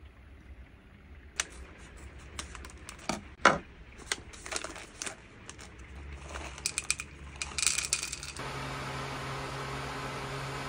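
Coffee beans rattling and clinking as they are poured out, in scattered bursts, then a steady hum that sets in about eight seconds in.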